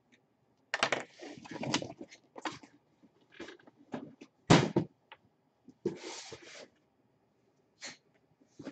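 Cardboard collectible boxes being handled and set down on a table: sliding and scraping with scattered knocks, the loudest a sharp knock about four and a half seconds in.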